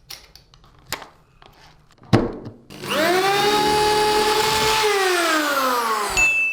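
A few clicks and a knock, then the restored corded DeWalt drill's motor whines up to speed, runs steadily for about two seconds, and slows with a falling pitch.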